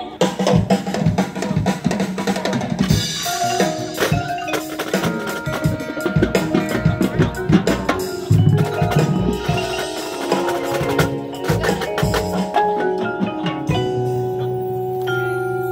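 Drum corps percussion section playing: snare and tenor drums with bass drums in quick, dense strokes, plus pitched mallet keyboard notes. Held pitched notes build near the end.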